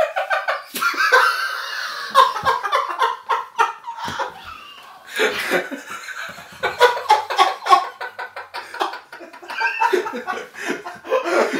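Two men laughing hard together in fits of rapid, pulsing bursts, easing off about halfway through and then breaking out again.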